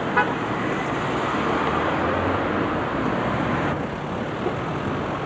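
Steady city street traffic and vehicle running noise. A brief ringing tone sounds just after the start, and the sound changes abruptly about three-quarters of the way through.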